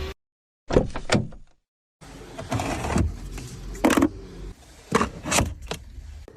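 Sharp clicks and knocks from a car being handled, cut into short pieces with two abrupt drops to dead silence in the first two seconds.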